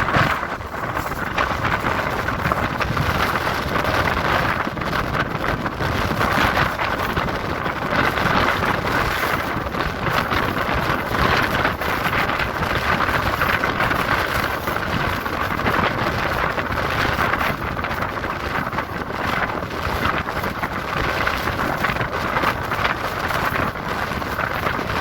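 Sea waves at high tide, a steady rushing surf with wind on the microphone.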